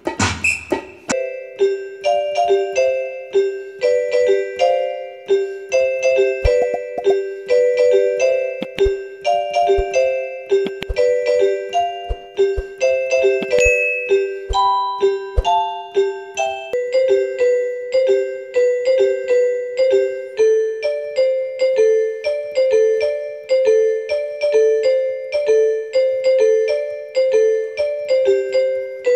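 Background music: a keyboard melody of short, evenly spaced notes over a repeating low note, changing to a new figure about halfway through.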